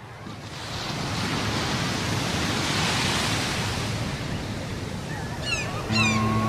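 Surf-like rushing of waves that swells in from faint over the first second and holds steady. Near the end a few high, falling cries sound, and sustained music notes come in about six seconds in.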